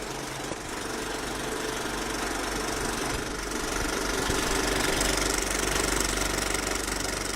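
Viper 3D printer running, its stepper motors buzzing steadily, growing louder through the middle.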